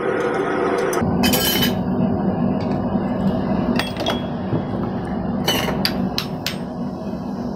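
Hammer blows on hot thin sheet steel over a steel anvil, shaping a crumpled candle cup. There are about six or seven sharp metallic strikes at irregular intervals: one about a second in, two close together around four seconds, and a quick cluster between five and a half and six and a half seconds. Steady background noise runs underneath.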